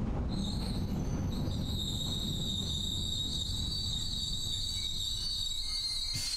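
Narrow-gauge train running with a steady low rumble, its wheels squealing against the rails in a high-pitched squeal. The squeal starts just after the beginning and cuts off shortly before the end.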